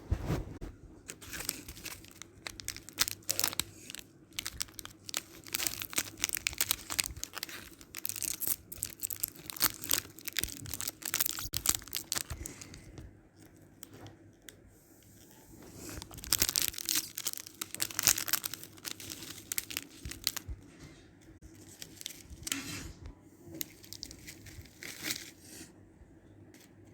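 Snack packet being torn open and crinkled in the hands: bursts of crackling and rustling with short pauses between.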